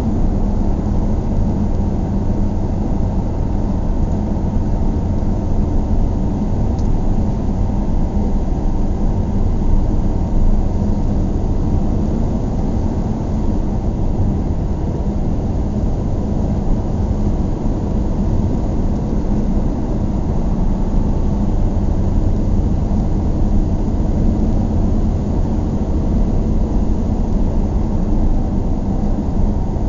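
Steady road noise of a car driving on a highway: a low, even rumble of tyres and engine that holds level throughout.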